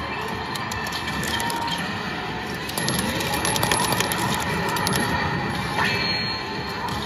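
Konami Fortune Trinity 2 medal-pusher machine playing its game music and electronic effects over a busy arcade din. From about three seconds in come many quick clicks and clinks of metal medals, and a short rising effect near the end marks the screen transition.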